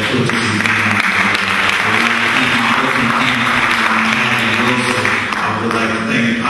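Audience applause, a dense steady clapping hiss in a hall, over a low steady hum.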